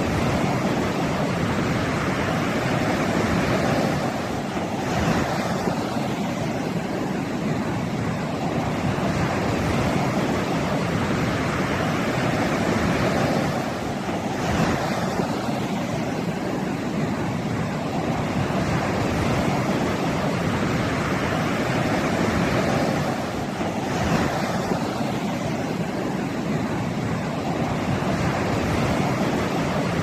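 Ocean surf breaking and washing up a sandy beach: a continuous rush of water and foam, with three louder crashes of breaking waves about nine or ten seconds apart.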